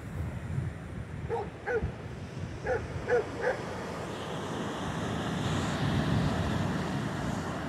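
A dog barking five short barks in two quick groups, about one and a half to three and a half seconds in, over steady wind noise.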